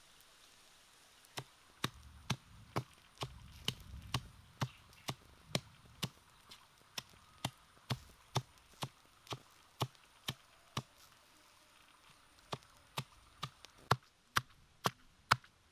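Stone pestle pounding red chili peppers in a stone mortar: sharp, regular knocks about two a second, which break off briefly about two-thirds of the way through, then start again louder.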